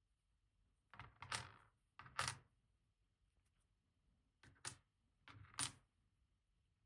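Metal discs and spacers of a Rosengrens 32A81 disc-detainer lock being set down one at a time on a hard surface: four short clinks at uneven intervals, each a light scrape followed by a sharp click.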